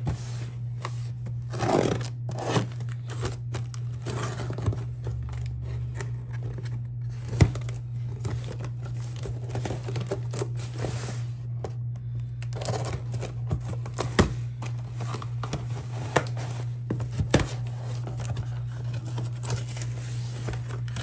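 Cardboard shipping box being opened by hand: packing tape tearing and cardboard flaps crinkling and scraping as they are pulled open, in short irregular bursts with a few sharp knocks.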